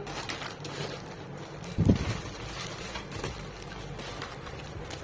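A box being handled and set down, with one dull thump about two seconds in, over faint rustling and background hiss.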